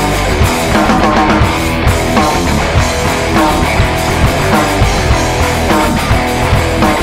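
Guitar-led alternative rock from a trio of guitar, bass and percussion, playing with a steady beat and no singing heard.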